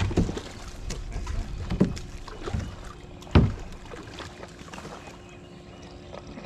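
Several knocks and bumps against a fishing kayak as the angler works his rod, the loudest about three and a half seconds in, over a faint steady hum.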